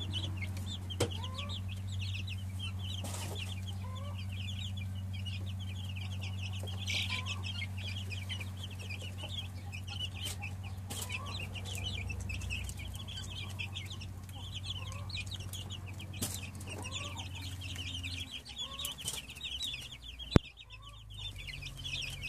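A brood of young Marans, Bresse Gauloise and Araucana chicks peeping continuously, a dense high cheeping, over a steady low hum that stops about eighteen seconds in. A single sharp click sounds near the end.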